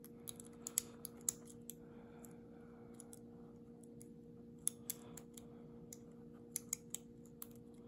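Light metallic clicks and ticks of a lock pick and tension wrench working the pins inside a Lockwood padlock, coming irregularly, a few at a time, over a faint steady hum.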